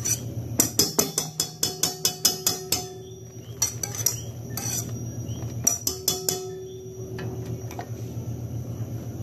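Metal whisk attachment and a utensil knocking and scraping against a stainless-steel stand-mixer bowl of half-whipped egg whites: quick runs of sharp clicks, about five a second at first, then shorter clusters, over a steady low hum.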